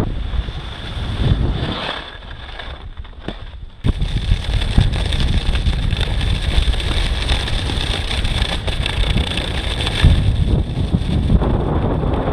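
Wind rushing and buffeting over an action camera's microphone during a downhill ski run. It is a steady low rumble that falls quieter for a couple of seconds and comes back suddenly about four seconds in.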